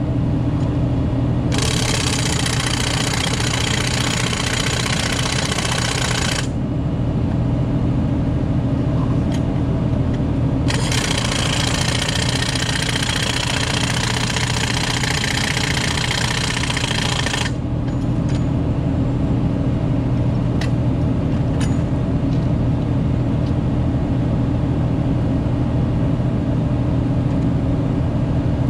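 Hose-fed impact wrench hammering on a rail joint's track bolts in two long runs, about five and seven seconds each. Under it the engine of the power unit that drives the wrench runs steadily.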